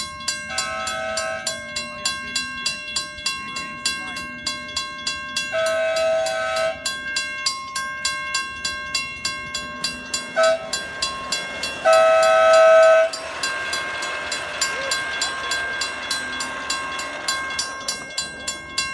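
Grade-crossing bell on a miniature railway ringing steadily, several strikes a second, while an approaching ridable scale train sounds its horn in the long, long, short, long crossing signal, the last blast the loudest. From about 13 seconds in, the rolling noise of the train's wheels passing over the crossing joins the bell.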